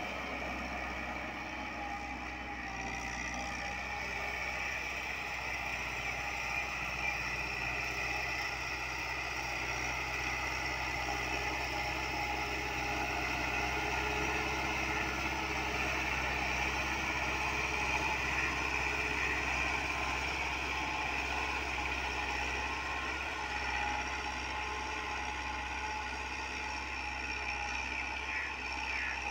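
Massey Ferguson 385 tractor's four-cylinder diesel engine running steadily under load as it pulls an eleven-tine cultivator through ploughed soil.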